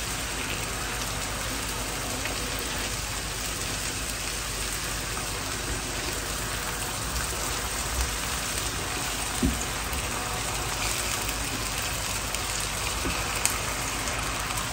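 Chopped onions frying in hot oil in an electric frying pan, a steady sizzle, as a spatula stirs them with a few light clicks against the pan.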